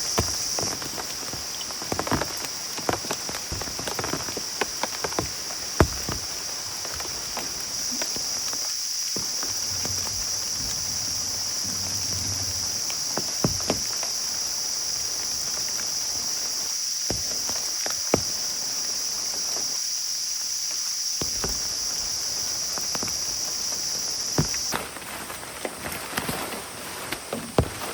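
Rain falling on a surface, with a steady high hiss and many scattered sharp drips, clicks and knocks; about 25 seconds in the high hiss drops out and the sound turns quieter and busier.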